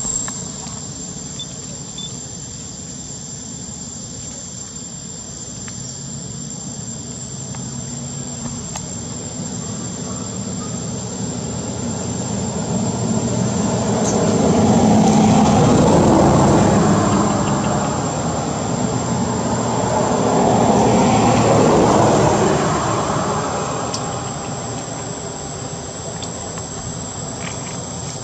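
Motor vehicle engine passing, growing louder and fading away twice, over a steady high-pitched drone of insects.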